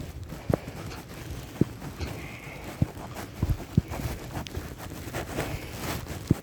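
Footsteps in snow and clothing rustle picked up by a camera carried in a jacket pocket: about six dull thumps at uneven spacing over steady rustling.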